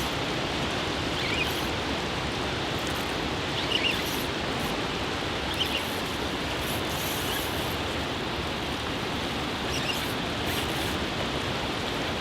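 Fishing reel being wound steadily during the fight with a hooked barramundi: a continuous mechanical whirr, with a few faint short chirps above it.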